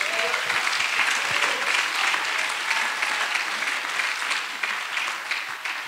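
Congregation applauding: a dense patter of many hands clapping that eases off near the end.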